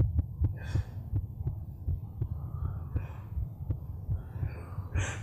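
A low, throbbing pulse like a heartbeat, repeating irregularly several times a second, laid under the scene as a tense soundtrack bed, with a few faint breathy puffs.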